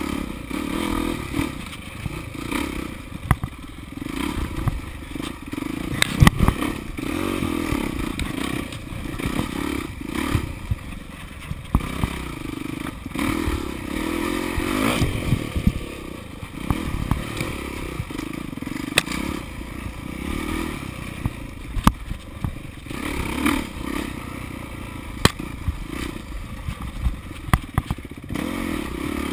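Dirt bike engine revving up and down as it is ridden hard along a rough trail, with frequent knocks and clatter as the bike bounces over the ground.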